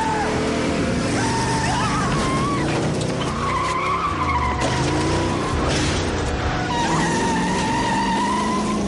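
1972 Chevrolet Chevelle's tyres squealing in long, wavering screeches as it spins and burns out, with its engine running hard underneath. The squeal breaks off briefly twice and starts again.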